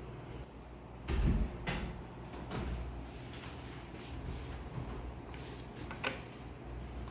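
Handling noises from fitting parts onto a clear-resin statue: a dull thump about a second in, then a few light clicks and knocks, the sharpest one near the end.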